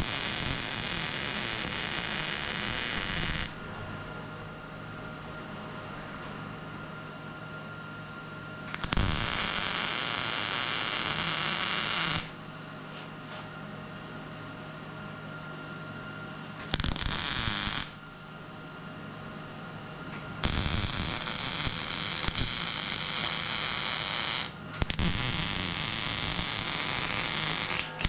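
MIG welder laying short stitch welds on steel sheet-metal roof seams: five bursts of steady crackling buzz, each one to four seconds long. A steady hum fills the pauses between them.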